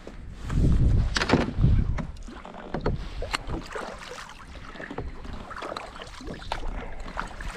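Sounds aboard a fishing kayak: gusts of wind rumbling on the microphone, with several sharp knocks and splashy water sounds scattered through.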